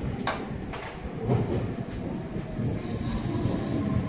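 Meitetsu 6800-series electric train at the platform: a few sharp clicks in the first two seconds, then a hiss and a steady whine that grow toward the end.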